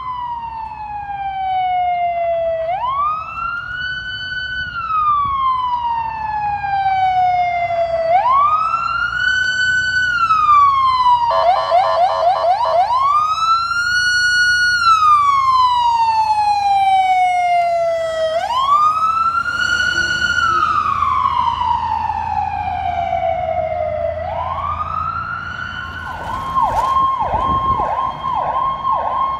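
Fire department emergency vehicle's electronic siren on wail, sweeping up quickly and gliding slowly down every five to six seconds. About twelve seconds in it breaks briefly into a rapid warble, and near the end it switches to a fast yelp, a couple of sweeps a second.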